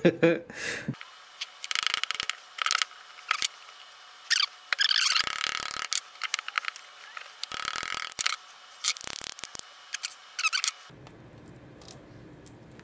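A knife blade scraping and prying at a freshly forged carbon-fibre brake lever and its mould, in irregular rasping strokes of up to a second or so, with sharp clicks and knocks of tool and mould pieces on the bench.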